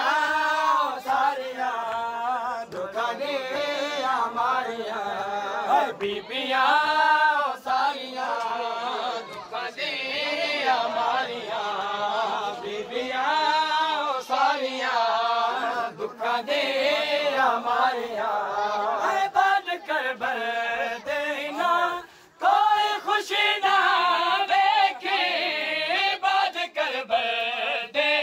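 Group of men chanting a Punjabi noha, a Muharram mourning lament, in unison, the melody continuous and wavering.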